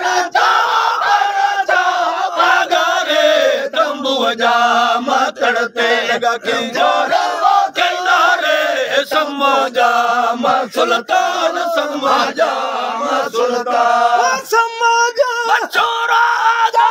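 Group of male Sindhi faqeers singing raag in the kafi form, unaccompanied: loud, drawn-out voices together in unison, the melody sliding up and down.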